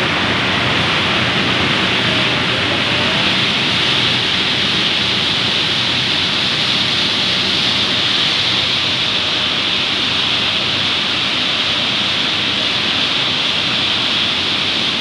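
Steady, loud running noise of palm oil mill processing machinery: an even hiss that is strongest high up, over a low hum, with no change.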